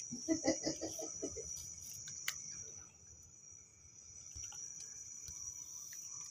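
A cat crunching dry kibble, heard as scattered soft crunches, over a steady high-pitched cricket trill. A brief voice sounds in the first second and a half.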